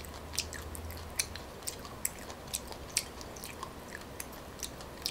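Close-miked chewing of coconut palm weevil larvae: moist mouth clicks and smacks, irregular, about two to three a second.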